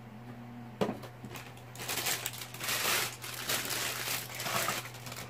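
Packaging crinkling and rustling as a folded neck phone holder is packed back into its box, with a single knock about a second in and the crinkling growing dense from about two seconds on.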